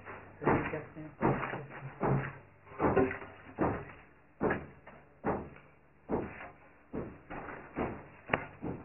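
A steady series of dull knocks, about one every 0.8 seconds, some of them doubled.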